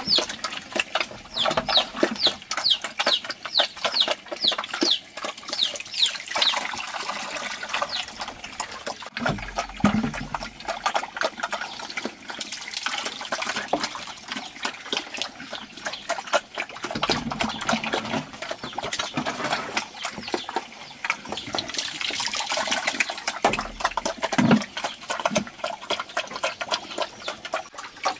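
Chickens in a farmyard: a run of short, high, falling peeps repeated about twice a second for the first several seconds, then clucking, over a dense patter of small clicks and rustles.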